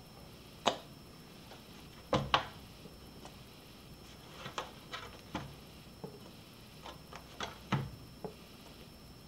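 Scattered light clicks and knocks of handling: a squeeze bottle of sriracha sauce being squeezed and beef ribs being shifted in a disposable aluminium foil pan. There are about a dozen uneven taps, the sharpest just under a second in and two close together about two seconds in.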